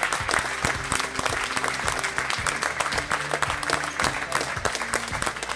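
Spectators clapping and applauding, a dense run of irregular claps, with music playing faintly underneath.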